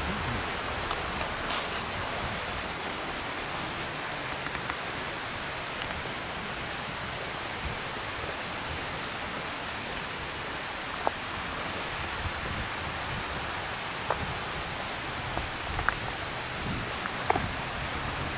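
Steady rushing of falling water from Multnomah Falls, an even roar with a few faint short ticks in the second half.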